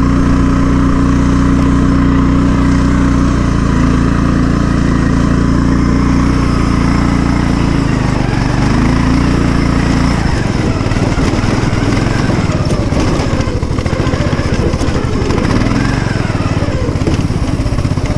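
Engine-swapped Poulan riding lawn mower's engine running hard as it is driven at speed, a steady loud drone that dips briefly in pitch about eight seconds in. About ten seconds in, the sound turns rougher and more uneven.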